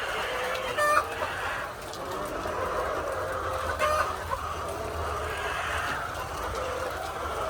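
A flock of hens clucking together, with short sharper calls standing out about a second in and again about four seconds in.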